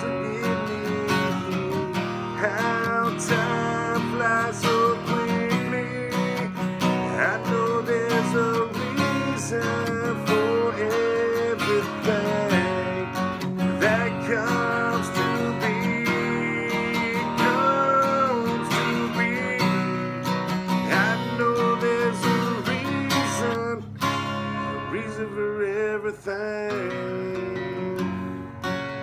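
Acoustic guitar strumming chords in an Americana-rock song, with a melody line bending above it; the playing thins out about three-quarters of the way through.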